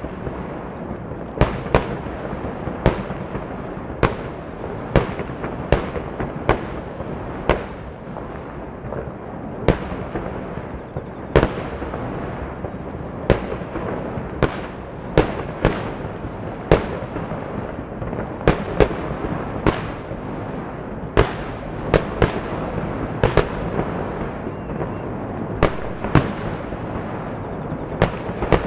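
Fireworks of a large water starmine on a lake: shells bursting in sharp booms roughly once a second at uneven spacing, over a continuous rumble of further bursts.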